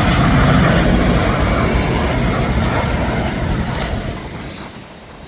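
Jet aircraft landing on the runway, its engine noise loud and steady, then fading away from about four seconds in.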